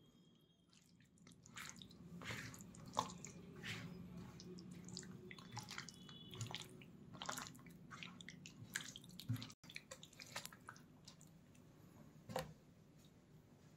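Hands kneading raw chicken pieces into a thick, wet spice paste on a banana leaf: faint, irregular squelches and sticky smacks.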